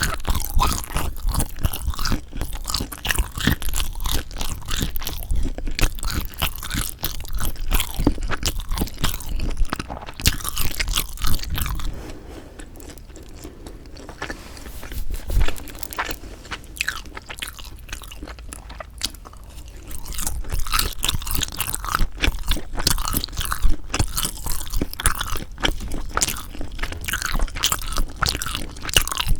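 Close-miked eating of sundae (Korean blood sausage): rapid, dense chewing and biting clicks, easing to a quieter, sparser stretch about twelve seconds in before dense chewing picks up again about eight seconds later.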